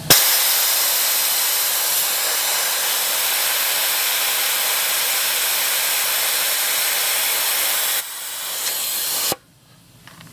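Air hissing out of a truck tire as it is aired down for off-road driving. The hiss starts abruptly, runs strong and steady, drops lower about eight seconds in, and cuts off sharply about a second later.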